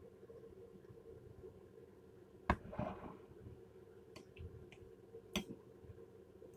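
Metal cutlery clinking and scraping on a plate while eating: a sharp clink about two and a half seconds in with a short scrape after it, a few light taps, and another sharp clink about five seconds in, over a faint steady hum.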